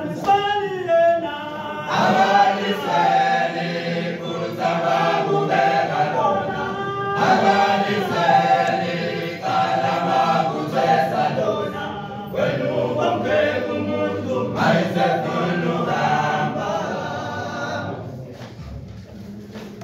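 A male a cappella choir singing in close harmony, held notes shifting together; the singing tails off near the end.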